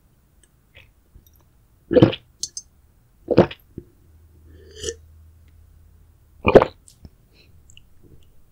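A person burping three times: short, loud burps about two, three and a half, and six and a half seconds in.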